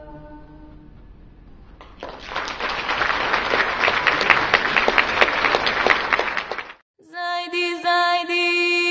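Applause from an audience for about five seconds, cut off abruptly, between the fading end of one piece of music and the start of another piece with held, chant-like tones.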